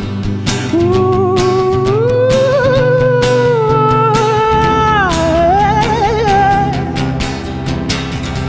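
Live band music: a long, wavering melody line that slides up and down in pitch over a steady beat and sustained low accompaniment.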